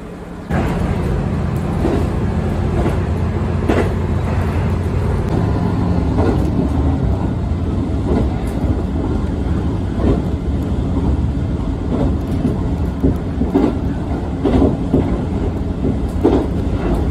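Diesel railcar running along the line, heard from inside the carriage: a steady low rumble with occasional sharp knocks. It cuts in abruptly about half a second in.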